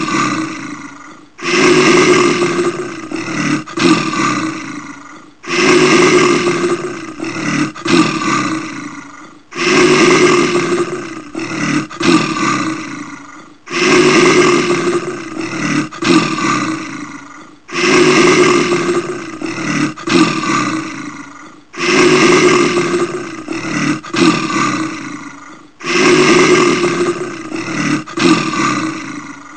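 Brown bear roaring, the same roar repeated about every four seconds, seven times over: each starts suddenly and fades away.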